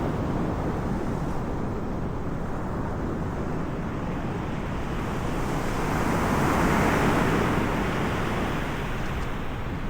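Ocean surf: a continuous wash of waves, with one wave surging louder about six seconds in and then easing off.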